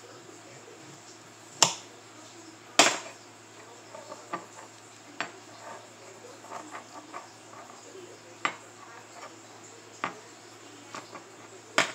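Knife cutting an orange on a marble countertop: a series of sharp knocks as the blade and fruit strike the stone, the loudest two early and one at the end, with softer clicks between.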